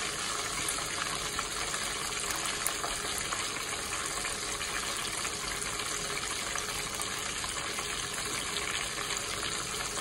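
Whole doves deep-frying in hot oil in a pot: a steady sizzle with faint crackles scattered through it.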